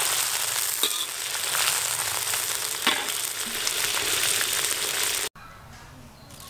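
Beef kidney and bell peppers sizzling in hot oil in a wok, with a few clicks of the wire-mesh strainer against the pan. The sizzle cuts off suddenly about five seconds in, leaving a much quieter background.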